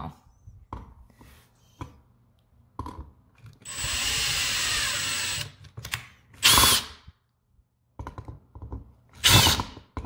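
Makita cordless drill running in reverse, backing out an outlet's mounting screw: one steady run of about two seconds with a high motor whine, then two short, louder trigger bursts in which the whine spins up and down. Small clicks come between the runs.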